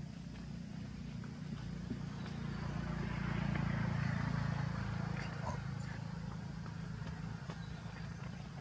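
Low rumble of a passing motor vehicle, swelling to its loudest about four seconds in and then fading, with a few faint clicks.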